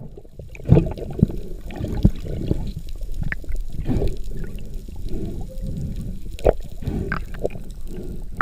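Muffled underwater sound heard through a GoPro dive housing: gurgling water with irregular knocks and thuds.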